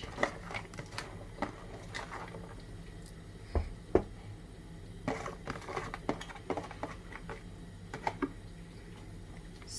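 Cabbage being packed into a steamer by hand: scattered rustling and crunching of the leaves, with a couple of sharper knocks about four seconds in.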